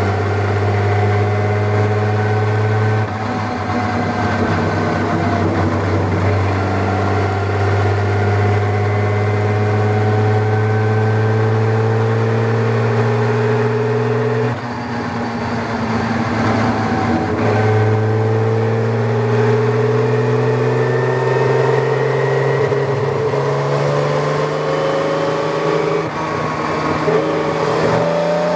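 Tojeiro Jaguar's Jaguar straight-six racing engine running hard under load, heard from inside the open cockpit, its note slowly climbing in pitch. About halfway through the note breaks and eases for about three seconds, then it pulls and climbs again.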